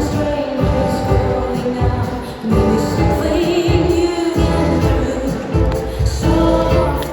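Ballroom tango music playing over a regular, clipped beat, with a singing voice carrying the melody.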